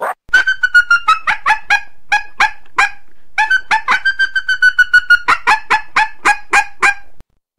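Female coyote estrus chirps: a run of short, high, yipping chirps about three a second, broken by a few longer held whines, ending about seven seconds in. These are the calls of a female coyote in heat during mating season, used to draw in males.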